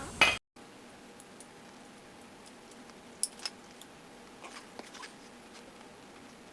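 A brief loud knock at the very start, then a few faint, scattered metal clinks and taps from brake parts and hand tools being handled.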